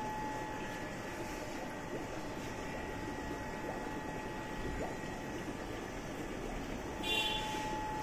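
Steady hum and hiss of an aquarium's air pump and sponge filter running, with a constant mid-pitched whine. A brief higher sound stands out about seven seconds in.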